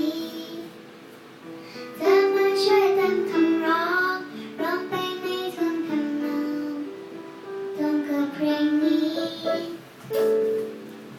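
A child singing a Thai song over a plucked-string accompaniment, the voice coming in strongly about two seconds in after a quieter stretch.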